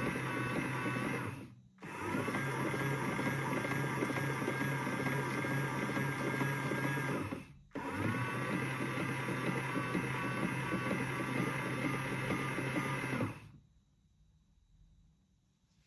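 Small battery-powered electric motor of a Theo Klein toy washing machine, running steadily with a hum and a higher whine as it turns the drum. It stops briefly twice and starts again, then switches off near the end.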